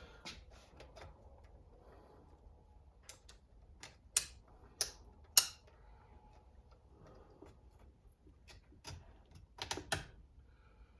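Small hard parts clicking and clattering as new fasteners are picked out and handled: scattered irregular taps, the sharpest ones a few seconds in and another cluster near the end.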